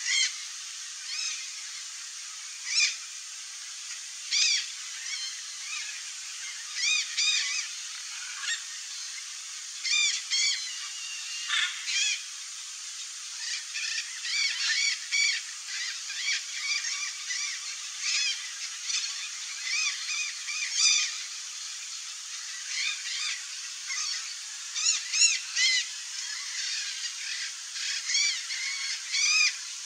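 Birds calling: many short, harsh calls, each a fraction of a second, some in quick runs of two or three. They come sparsely at first and grow more frequent about halfway through, over a steady faint hiss.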